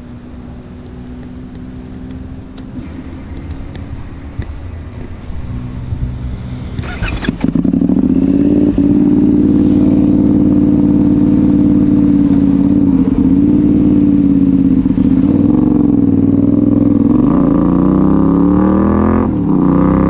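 Benelli 752S parallel-twin engine run without its silencer: a quieter, steady engine sound at first, then, after a sudden jump about seven seconds in, running loud at steady revs under way. Near the end the revs climb and drop sharply, as with a gear change.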